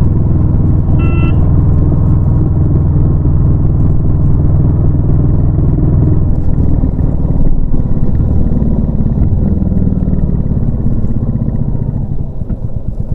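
Royal Enfield Classic 350's single-cylinder engine running under way. The note shifts about halfway through, rises again, and then eases into a slower, more distinct thumping near the end as the bike slows. A short high beep sounds about a second in.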